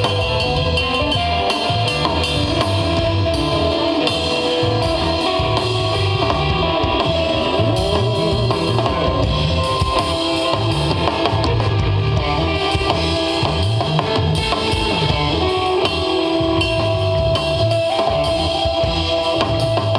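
Live instrumental desert rock jam: a drum kit keeps a steady beat with cymbals while an electric guitar holds long, sustained lines over a moving low bass part.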